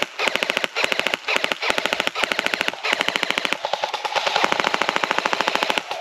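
Airsoft electric guns firing full-auto in short, rapid bursts, one after another with brief gaps, each burst a fast rattle of shots over a buzzing gearbox.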